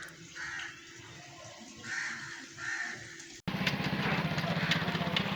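Crows cawing three times. About three and a half seconds in, the sound cuts sharply to an engine running steadily with a low, fast-pulsing hum.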